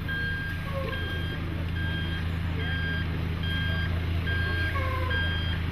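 Heavy vehicle's reversing alarm beeping in an even rhythm, a little more than one beep a second, over the steady low running of its engine.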